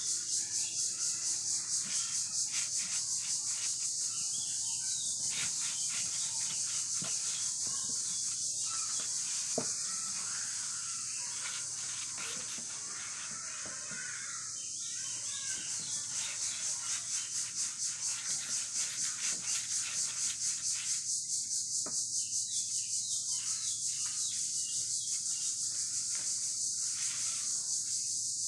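High-pitched insect buzzing, pulsing a few times a second and steady throughout, briefly softer around the middle.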